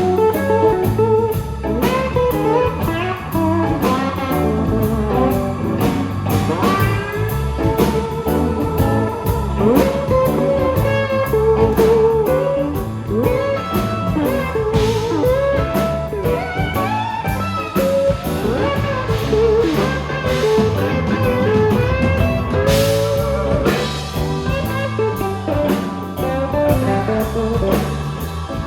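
Live band playing an instrumental blues-rock passage: a lead guitar plays bending, wavering notes over bass and drums.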